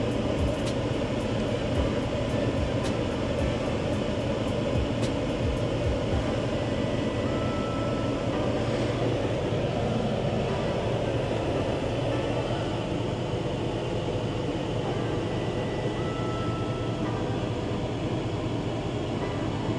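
Steady low vehicle rumble, with a short faint beep about every nine seconds and fast faint ticking during the first six seconds.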